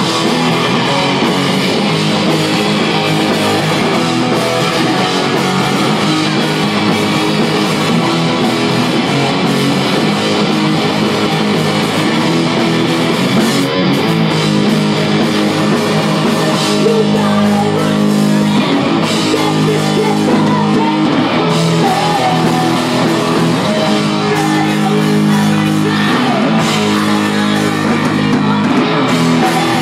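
Live rock band playing loudly, with electric guitar and drum kit.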